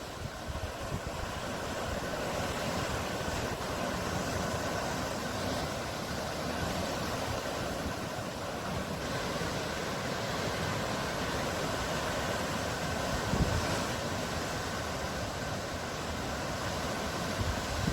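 Sea waves: a steady, unbroken rush of surf, with a brief low thump about thirteen seconds in.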